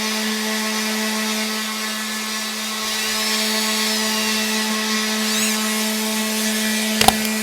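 An electric power tool's motor running steadily with an even hum. A couple of sharp clicks come near the end.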